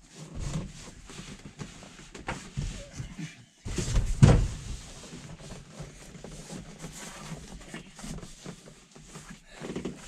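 An upholstery panel being handled and pushed into place inside a truck sleeper: scattered rustles, taps and knocks, with one louder thump about four seconds in.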